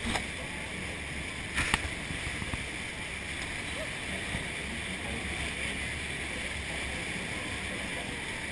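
Steady rush of wind and churning water around a tour boat, with a low steady hum underneath and two brief knocks in the first two seconds, the second one the loudest.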